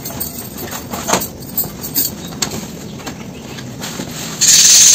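A gift bag and its wrapping rustling and crinkling as a boxed gift is handled and pulled out, with small clicks of handling and a loud short burst of crinkling near the end.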